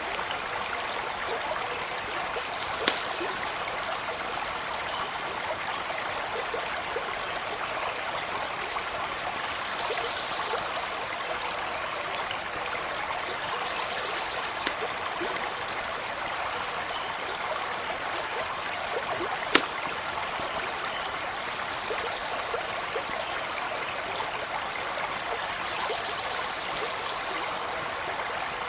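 Small stream running steadily over stones, with scattered sharp pops from a crackling campfire, two of them louder, about three seconds in and near the middle.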